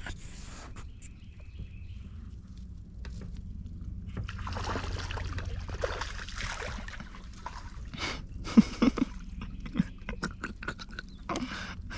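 A hooked bream splashing at the water's surface as it is reeled in, a rush of splashing a few seconds in. Then several sharp knocks and slaps near the end.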